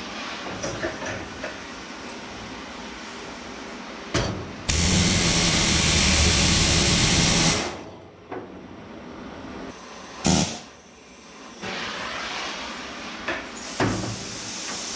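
A hot steel rivet being set with a rivet hammer: about three seconds of loud, rapid hammering starting a little over four seconds in, then a short second burst about ten seconds in.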